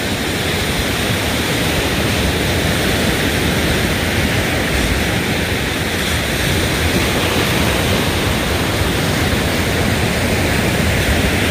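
Steady rushing of surf on the shore mixed with wind buffeting the microphone, a deep flickering rumble under an even hiss with no breaks.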